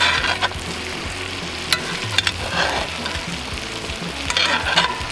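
Steaks and butter sizzling steadily in a hot cast iron skillet while being basted, with a few sharp clicks and scrapes of the metal basting spoon against the pan.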